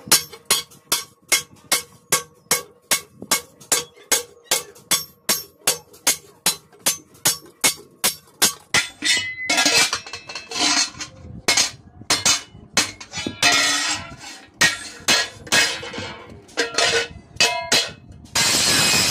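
Hand hammer striking sheet iron over a steel block, sharp metallic blows at a steady two or three a second, then quicker and more irregular as the edge of an iron plate is bent over. Near the end a steady grinding noise cuts in, an angle grinder on the plate.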